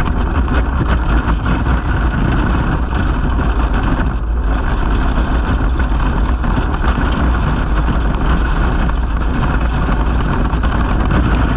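Steady, loud rumble of wind and rolling-tyre noise from an engineless soapbox cart coasting fast downhill on asphalt at about 35–45 km/h.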